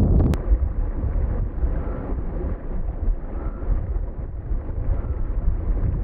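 Brook water rushing over rocks, a steady low rushing noise. A sharp click comes about a third of a second in, after which the rushing is a little quieter.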